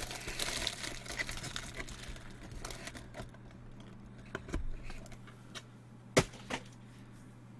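Trading cards and card packs rustling and sliding as they are handled on a table, followed by scattered light clicks and one sharp tap about six seconds in.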